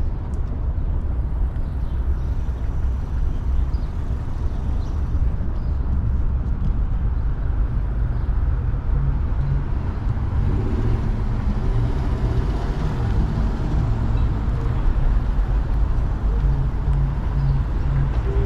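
Street traffic: cars passing through an intersection over a steady low rumble, with an engine note coming up about ten seconds in.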